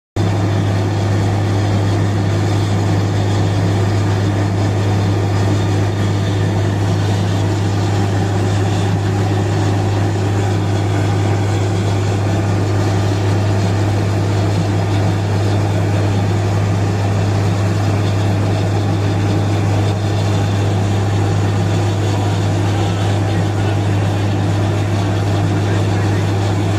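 Borewell drilling rig running steadily, a loud, unchanging engine drone with a strong low hum, while muddy water and slurry are flushed out of the borehole.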